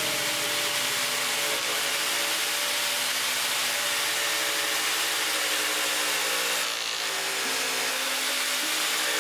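A fine, jigsaw-type saw blade mounted under a table cutting through plywood, a steady hissing cut as the workpiece is fed into it.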